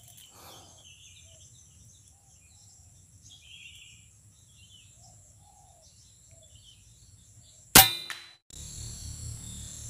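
Single sharp shot from a PCP air rifle, the SE 03 Transformers, with a short ringing tail, a little under 8 seconds in, over quiet outdoor ambience with faint scattered bird chirps.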